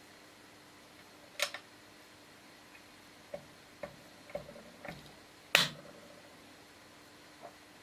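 Magnetic toggle switch being flicked, making sharp clicks at irregular intervals, about seven in all, the loudest a little past halfway.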